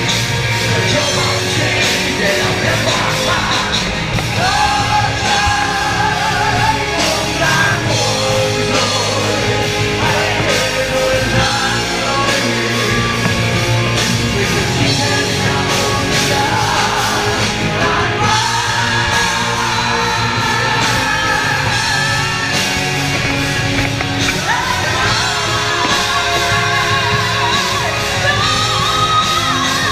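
Live rock band performing: a singer over electric guitars, bass and drums, heard through the reverberation of a large hall and recorded close to the stage at high level.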